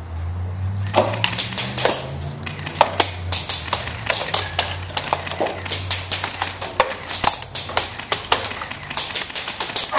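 Airsoft guns firing: dense, irregular sharp snapping shots, over a low hum that fades out about seven seconds in.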